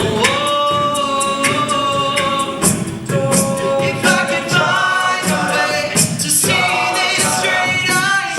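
A cappella group singing sustained chords in close harmony, with vocal percussion ticking out a steady beat underneath.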